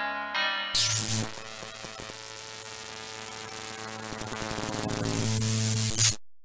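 Logo-reveal sound effect: a few plucked keyboard-like notes, then a sudden hiss full of fine crackles over a low steady hum that swells for about five seconds, ends in a short hit and cuts off abruptly.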